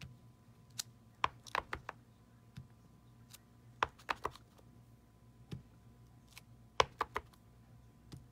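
Clear acrylic stamp block tapping on a Versamark ink pad and pressed down onto cardstock: sharp plastic clicks and taps, several quick ones together about every two to three seconds with single taps between.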